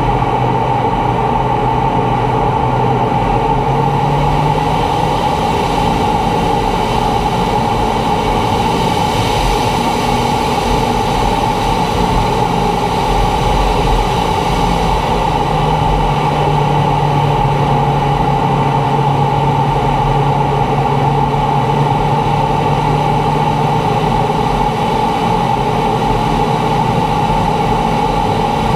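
T-45 Goshawk jet trainer in flight, its single Adour turbofan and the airflow making a loud, steady noise. A low hum under it shifts pitch twice, about five seconds in and again about halfway through.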